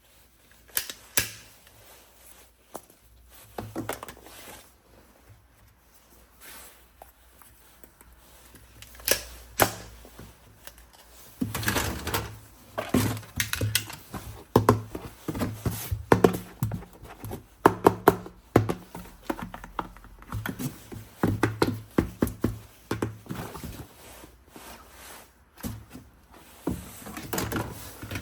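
Irregular clicks and knocks of a plastic toy gun being handled: a few sharp clicks at first, then a busy run of clicking and knocking from about halfway through.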